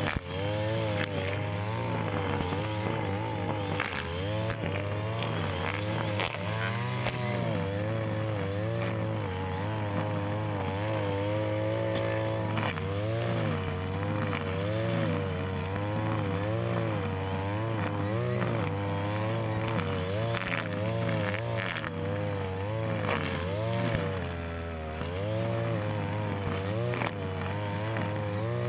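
Petrol brush cutter (grass-cutting machine) running under load, its engine speed repeatedly rising and falling about once a second as it cuts grass, with short crackles scattered through.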